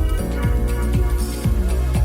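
Electronic dance music with a steady beat, about two kicks a second.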